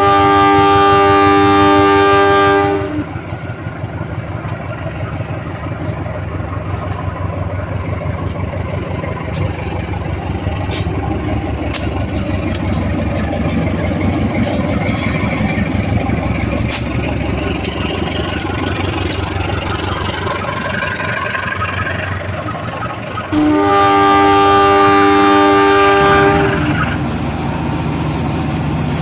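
Rail King battery-powered toy train sounding its horn for about three seconds, then running along the track with a steady whirring rattle, and sounding the horn again for about three seconds near the end.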